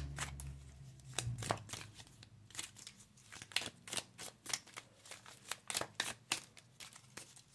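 A deck of round cards being shuffled by hand: a run of quick, irregular clicks of card against card.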